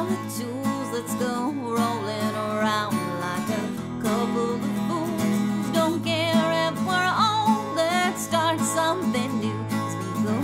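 Acoustic guitar song in a country style, with a woman singing in places.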